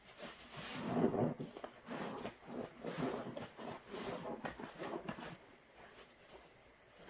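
A large yellow sponge squeezed and wrung in thick white suds of a pine and lemon floor-cleaner mix, worked by rubber-gloved hands: a run of wet squishes, loudest about a second in, dying away after about five seconds.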